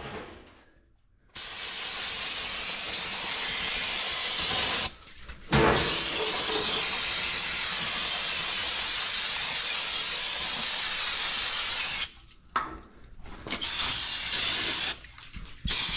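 Pressurised spray hissing in long bursts. It runs for about ten seconds with one brief break, then returns in shorter bursts near the end.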